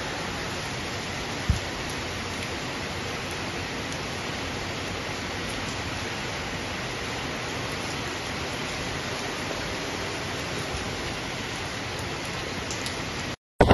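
Steady hiss of heavy rain falling, with one short dull thump about a second and a half in. The sound drops out abruptly just before the end.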